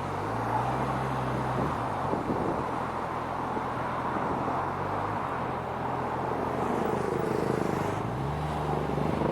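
Car engine and road noise while driving in traffic. The engine note rises just after the start, drops about five seconds in, and rises again about eight seconds in.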